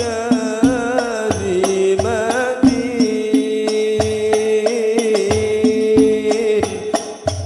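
Sholawat: a lead male voice sings a slow, ornamented devotional melody through a microphone, accompanied by rebana frame drums beating a steady rhythm of deep strokes and sharp slaps.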